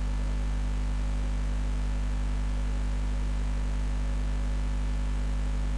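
Steady low electrical mains hum with a faint hiss over it, unchanging throughout.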